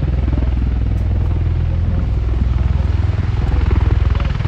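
V-22 Osprey tiltrotor hovering low in helicopter mode, nacelles tilted up: a loud, steady, deep drone with a rapid pulsing beat from its two large rotors.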